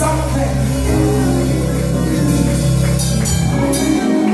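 Live church praise band playing: bass guitar holding sustained low notes over keyboard and drum kit, with a few cymbal strokes. The low notes cut out briefly near the end.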